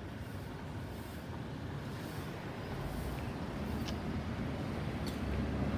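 Road traffic: a motor vehicle's engine and tyre rumble, growing steadily louder.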